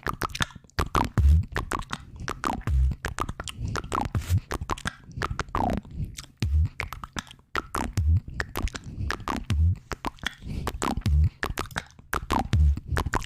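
Close-miked ASMR mouth sounds: rapid wet clicks and pops, some dropping quickly in pitch, over a low thump that recurs about every second and a half.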